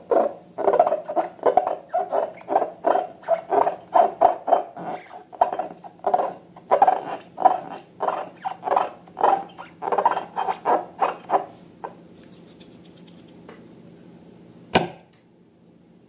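Slime being squeezed and kneaded by hand, a quick run of sticky squelches at about three a second that stops about three-quarters of the way through, followed by a single sharp click.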